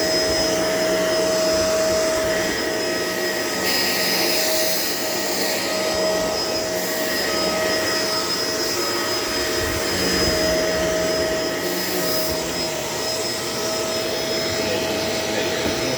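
Shark LA702 upright vacuum cleaner running steadily, its motor giving a constant whine.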